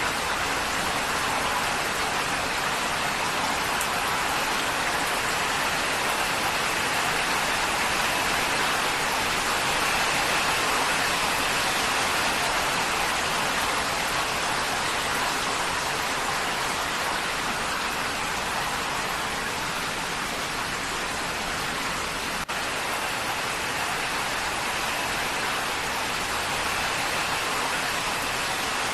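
Heavy rain drumming steadily on a corrugated tin roof: a dense, even patter.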